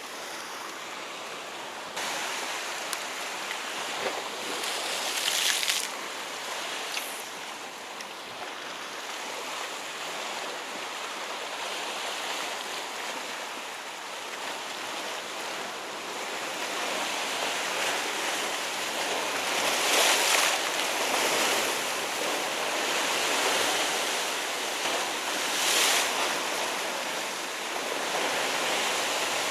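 Sea waves washing against a rocky shore, a steady rush that surges louder a few times as waves break, with some wind on the microphone.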